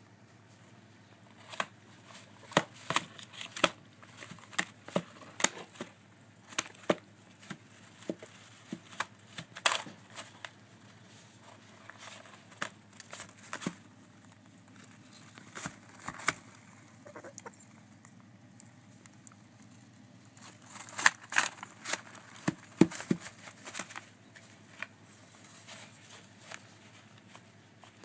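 African grey parrot chicks shuffling on newspaper bedding in a plastic box: irregular sharp clicks, taps and paper rustles, with a loud cluster about three-quarters of the way through.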